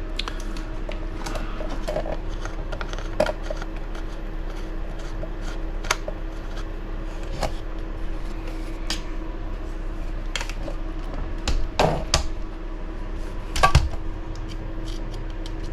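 Scattered light clicks and taps of small screws, mounting stands and hand tools being handled during RC buggy assembly, with a few louder knocks near the end. A steady low hum runs underneath.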